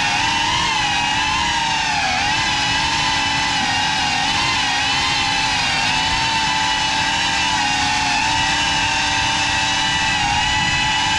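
Electric motors and propellers of a GEPRC Cinelog35 cinewhoop FPV drone whining in flight. The pitch wavers up and down with throttle changes, dipping slightly about two seconds in.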